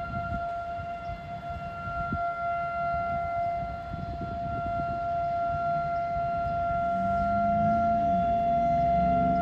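Outdoor warning siren sounding one steady, unbroken tone, the alert signal of a scheduled siren test, over a low gusty rumble.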